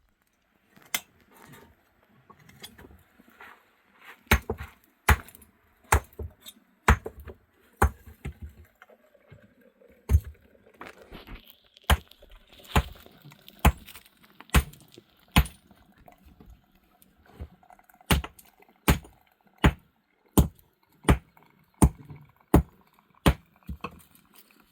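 Repeated sharp strikes of a hand tool on a hard surface, irregular at first, then settling into a steady beat of about one stroke every three-quarters of a second, with quieter knocks in between.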